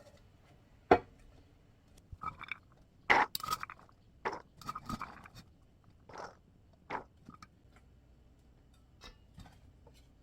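Kitchen dishes and utensils knocked, clinked and scraped during food prep: one sharp knock about a second in, then a cluster of clinks and scrapes, thinning to a few light ticks near the end.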